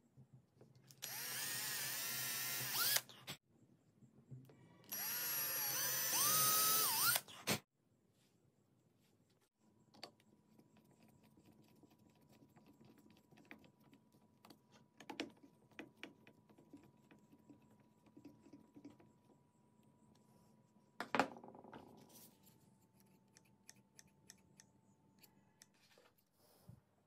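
Electric drill boring two holes into a wooden stock: two loud bursts of about two seconds each, the motor pitch shifting as the bit cuts. Then the drill runs slowly and faintly with a thin steady whine, driving screws through a metal bracket into the wood, with one sharp click about two-thirds of the way in.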